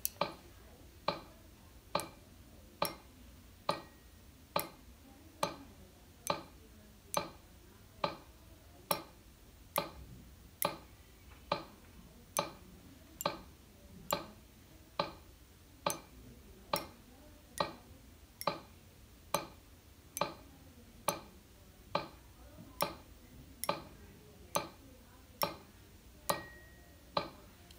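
Metronome app on a tablet clicking steadily at 69 beats per minute, a little more than one sharp click a second.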